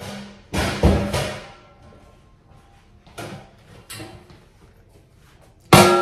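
A large aluminium cooking pot and its lid being carried in and handled: a few knocks and bumps, then a loud metallic clang with some ringing near the end as the pot comes down on the counter.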